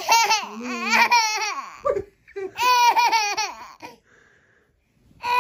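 Toddler girl laughing hard in high-pitched bouts: two long runs of laughter, a short pause, then laughing again near the end.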